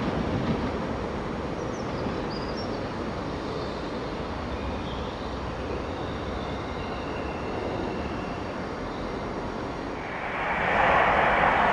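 Distant passenger train running along electrified main-line track: a steady rumble and rail noise. A louder rushing noise builds up about ten and a half seconds in.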